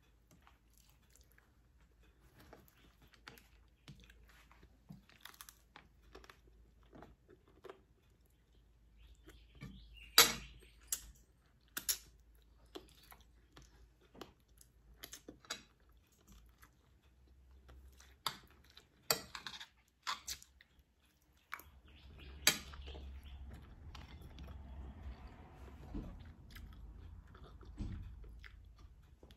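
A person chewing food (rice, fried egg and pork) with occasional crunches, broken by many short sharp clicks, the loudest a few scattered through the middle.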